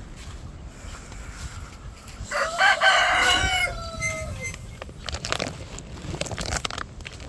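A rooster crowing once, one drawn-out call of about two seconds starting a couple of seconds in, with scattered short clucks and rustles after it.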